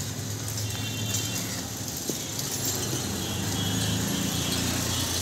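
Street traffic: vehicle engines running steadily, with a few short high-pitched tones from horns or bells, and a single sharp click about two seconds in.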